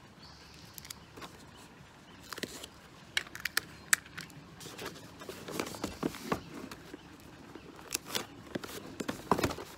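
Clear tape pulled off a dispenser and pressed onto a cardboard shoebox: scattered clicks, crinkles and rustles of handling, busier in the second half.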